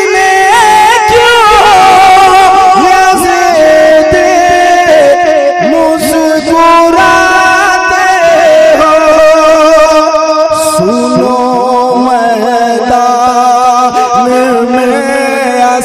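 A man singing a manqabat, an Urdu devotional poem in praise of Husain, into a PA microphone. He draws out long notes whose pitch wavers and glides from one to the next.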